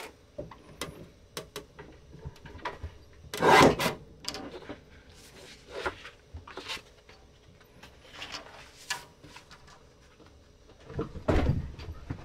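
Paper sticker sheets being slid, shuffled and tapped into place on a paper trimmer: soft rustling swishes and small clicks, with a louder thump about three and a half seconds in and another near the end.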